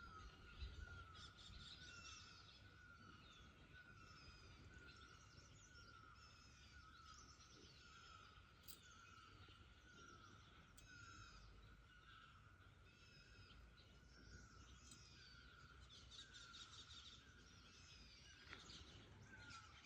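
Faint forest bird calls: one bird repeats a short note about once a second, with many higher chirps from other birds over it.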